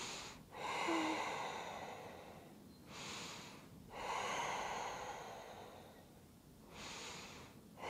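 A woman breathing slowly and deeply, each breath clearly audible, with shorter and longer breaths alternating: about five breath sounds in all.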